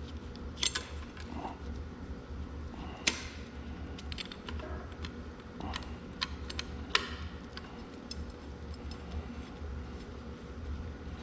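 Bolts and a steel seal retainer being handled and hand-started into a tractor axle housing: irregular light metallic clicks and clinks, a few sharper ones, over a steady low hum.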